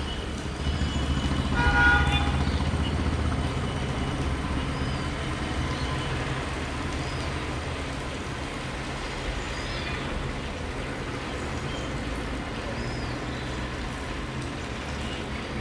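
Steady low engine rumble, with a short horn-like toot about two seconds in and a few faint high chirps.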